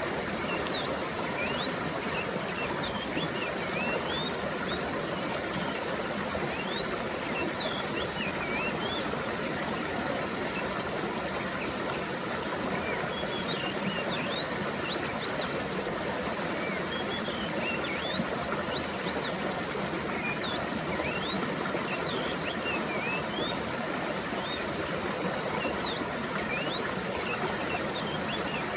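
A stream of running water flowing steadily, with small birds chirping and twittering in short rising and falling calls throughout.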